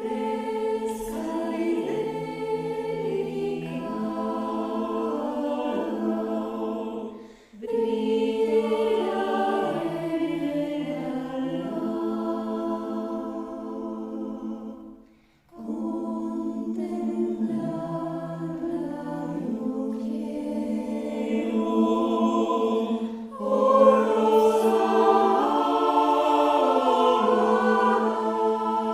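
Choir singing in sustained, slowly moving chords. Phrases break off briefly about a quarter and about halfway through, and the voices come back louder near the end.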